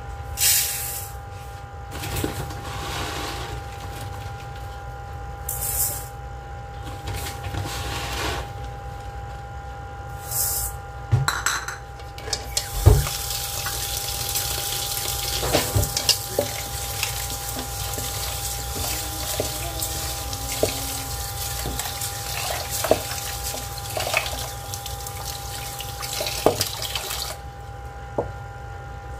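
Raw rice poured from a bowl into a metal cooking pot in several short pours, then a tap running steadily into the pot to wash the rice, with a few knocks of the pot. The water stops shortly before the end.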